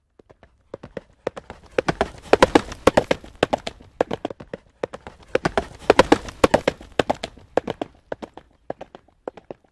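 Horse galloping: quick, uneven hoofbeats start about a second in, swell and ease off twice, then build again near the end.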